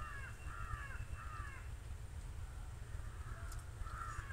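A crow cawing: three quick harsh caws, then after a pause another run of two or three caws near the end.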